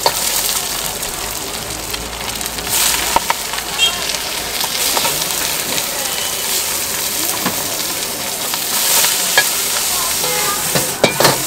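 Food sizzling in a hot wok as egg, bean sprouts and greens are stir-fried, with a metal ladle scraping and clanking against the wok. The sizzle swells twice, and a few sharp clanks come near the end.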